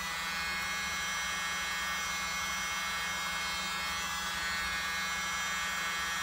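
Small electric blower running steadily, a constant motor hum with air rushing from its nozzle as it pushes wet acrylic paint outward into a bloom.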